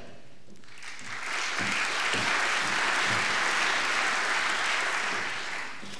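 Audience applauding, starting about a second in, building to a steady level and dying away near the end.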